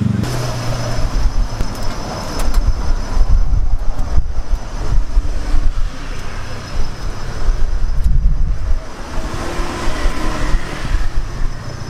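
Busy street ambience: a low, uneven rumble of passing traffic, with a faint steady high-pitched tone over it.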